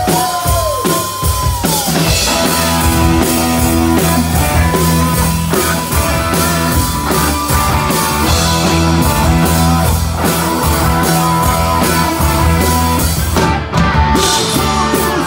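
Live rock band playing loudly: electric guitar, bass guitar and drum kit, with a brief break near the end before the band comes back in.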